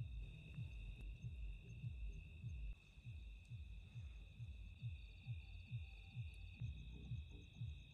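Night insects, likely crickets, in a steady high shrill drone, over a low pulsing beat that repeats about twice a second.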